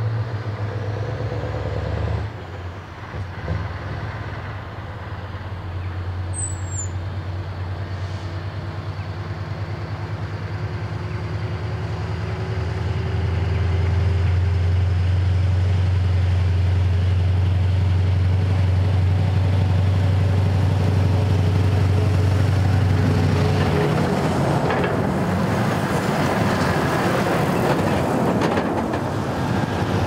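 A convoy of Scania lorries comes up the road with a deep, steady engine drone that grows louder as the trucks approach. In the last few seconds the lead truck and its trailer pass close by in a rush of engine, tyre and air noise.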